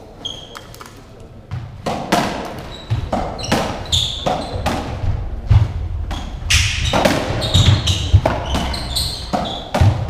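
Racketball rally in a squash court: the ball cracks off rackets, walls and floor about every half second, each hit echoing around the court. Short high squeaks, typical of trainers on the wooden floor, come between the hits. The hits start about a second and a half in.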